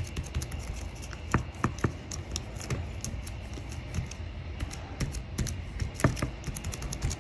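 Cloth wiping a round silicone tray mold, giving scattered small clicks and taps, over a steady low rumble of wind on the microphone.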